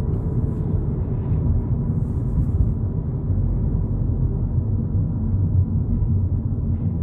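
Steady low rumble of a Volkswagen Polo GTI on the move, heard from inside the cabin: road and engine noise at a constant pace.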